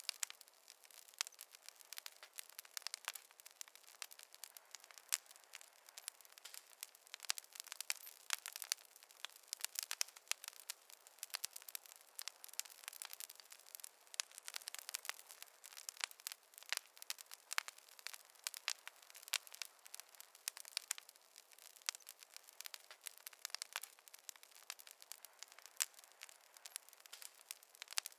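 Wood burning in a fireplace, crackling: a steady stream of sharp, irregular snaps and pops over a faint hiss.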